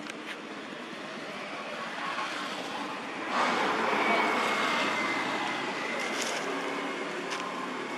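A vehicle passing by: its noise builds slowly, is loudest from about three and a half seconds in, with a faint high whine, then eases off toward the end.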